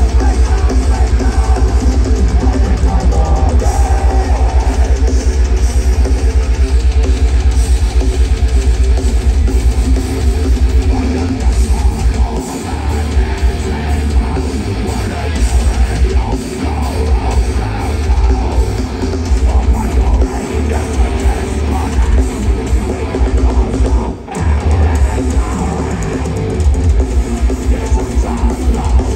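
Heavy metal band playing live over a festival PA, heard from within the crowd: distorted guitars over a fast, steady kick-drum pulse for the first ten seconds or so, after which the drumming breaks up with short pauses and the music dips briefly near the end.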